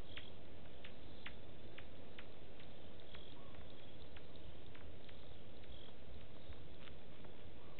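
Night-time waterhole ambience: a steady low background noise with scattered sharp high clicks, about two a second at uneven spacing, and a few very short high chirps.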